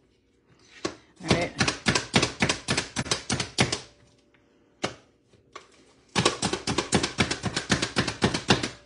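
A hand-operated plunger food chopper being struck over and over to chop onion, with fast clacking strikes, about six a second. There are two runs of a couple of seconds each, with a single strike between them.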